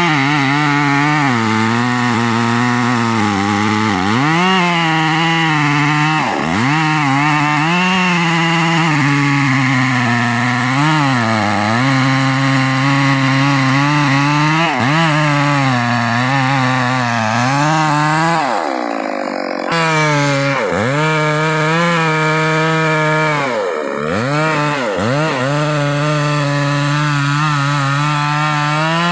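Stihl MS 381 two-stroke chainsaw cutting into hard trembesi (rain tree) wood at high revs. The engine speed sags and picks back up again and again as the chain bogs under load, with one deep sag and a brief break about two-thirds through.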